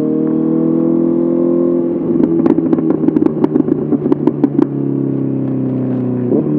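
Honda CBR 650R's inline-four engine running through an SC Project SC1R exhaust, its note rising gently at first. From about two seconds in, a rapid run of sharp pops and crackles lasts roughly two and a half seconds. It then settles to a steadier, slightly lower note with a short break near the end.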